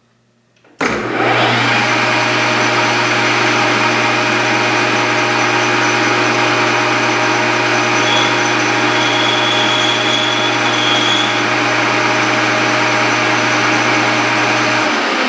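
Small benchtop metal lathe switched on about a second in, its motor and spindle gearing running steadily with a strong low hum. A faint high whine joins for about three seconds midway.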